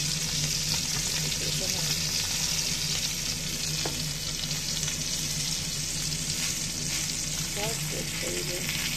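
Bone-in Angus beef steak sizzling steadily as it sears in a hot frying pan, while a wooden spoon stirs and moves it in the pan juices, with a single sharp tap about four seconds in.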